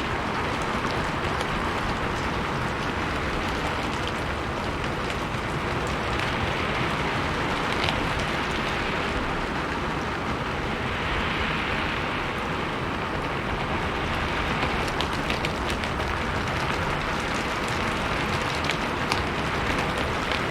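Steady rain falling on a roof, a dense even patter with occasional sharper drips standing out.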